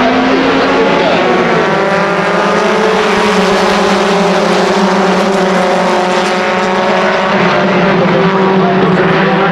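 Several race car engines running together on a short oval, their pitches slowly rising and falling as the cars circulate.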